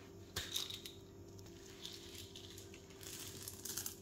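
Faint rustling and crinkling of hands working the food, with a small click about half a second in, over a steady low hum.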